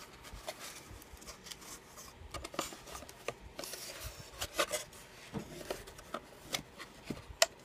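Handling noise as a mug is worked out of its retail packaging: rubbing and scraping with scattered light clicks and taps, and one sharper click near the end.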